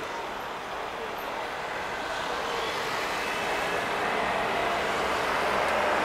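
Road traffic on a busy city street, with a vehicle growing steadily louder as it approaches.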